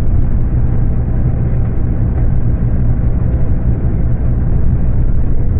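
Rear-mounted diesel engine of a Scania K250UB city bus running under way at high revs, a steady low drone, heard from inside the bus through a phone microphone.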